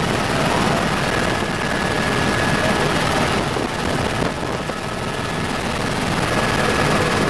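Cabin noise of a Helibras HB 350 Esquilo (AS350 Squirrel) helicopter in flight: a steady, loud rush of rotor and turbine noise with a thin high whine held over it.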